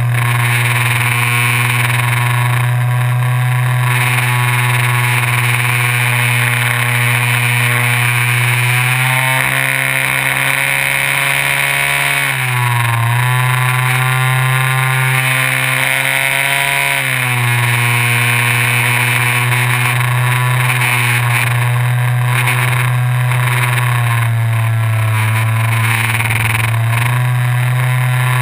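Electric motor and propeller of a FunCub RC airplane, heard from on board: a loud, steady buzzing drone whose pitch dips and climbs back a few times as the throttle changes, with rushing air hiss underneath.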